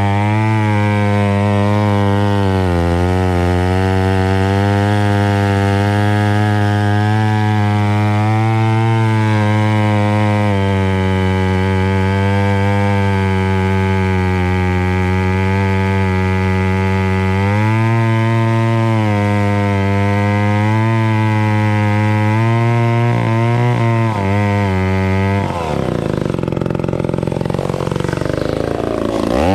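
Vintage McCulloch 890 103 cc gear-drive chainsaw running loud at high revs while cutting through wood, its pitch sagging briefly about three seconds in and climbing again near the middle. Near the end the steady engine note breaks up into a rougher, falling sound.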